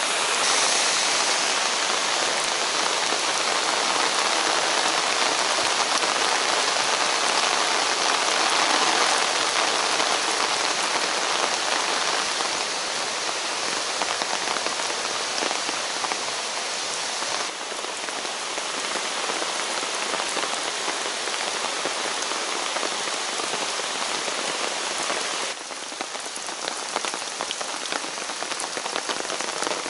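Steady rain falling through the forest, with fine drops ticking close by, over a rushing rocky mountain stream that is loudest in the first dozen seconds. The wash steps down in level about 17 seconds and again about 25 seconds in.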